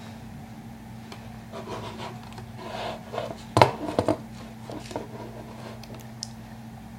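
Handling noise: rubbing and scraping with a few sharp knocks about three and a half to four seconds in, over a steady low hum.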